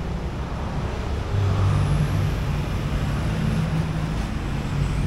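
Road traffic, with a motor vehicle's engine running close by and growing louder about a second and a half in.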